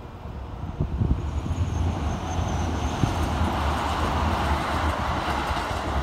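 Keikyu Line electric train passing nearby: a rumble that swells over the first few seconds and starts to ease near the end, with a faint high whine in the first half. Wind buffets the microphone underneath.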